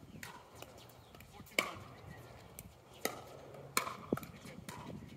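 Several sharp, separate plastic pops from a pickleball being hit by paddles and bouncing on the hard court.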